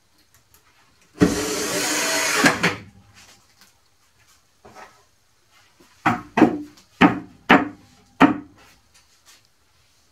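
A cordless drill/driver runs for about a second and a half, driving a screw into the plywood. A few seconds later come five sharp knocks on the plywood, spaced about half a second apart.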